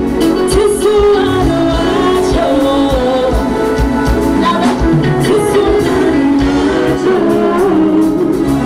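Live Afro-pop band performance: a woman singing lead into a microphone over electric bass, drum kit and keyboards, with a steady drum beat.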